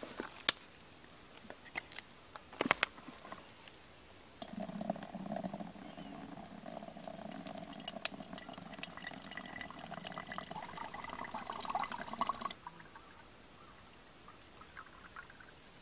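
A few sharp knocks and clicks, then liquid poured steadily into a container for about eight seconds, the pitch creeping up as it fills before it stops suddenly.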